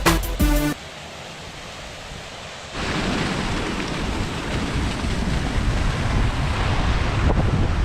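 Music cuts off within the first second; after a quieter stretch, from about three seconds in, a steady rush of wind buffeting the microphone mixed with the noise of a waterfall.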